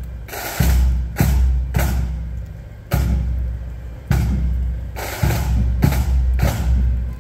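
Parade drums, bass drum and snare, beating time for marching troops in a series of strong, fairly regular hits.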